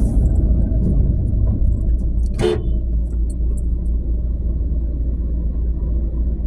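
Steady low rumble of a moving car heard from inside the cabin, with a single sharp knock about two and a half seconds in.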